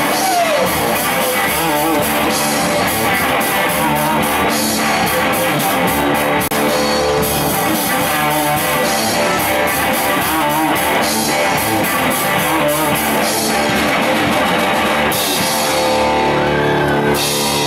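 A rock band playing live through amplifiers: electric guitars, bass guitar and a drum kit with frequent cymbal crashes.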